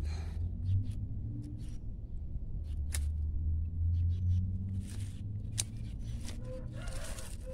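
Pruning shears snipping rose stems: two sharp clicks, about three seconds in and again two and a half seconds later, with leaves rustling and a low rumble underneath.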